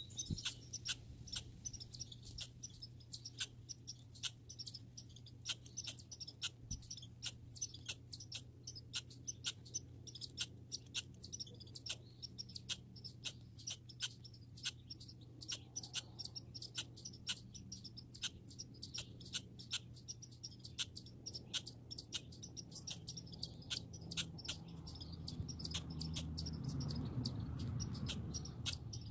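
A squirrel calling: a long, steady series of short, high chirps, about three to four a second, over a low background hum.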